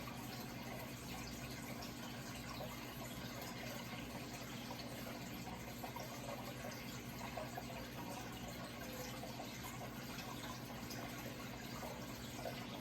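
Steady running water, trickling and splashing without a break, over a faint low steady hum.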